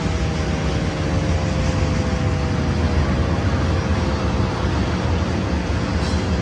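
ASC T-128 outdoor warning siren winding down, its tone sliding slowly lower. Heavy wind rumble on the microphone is louder than the siren.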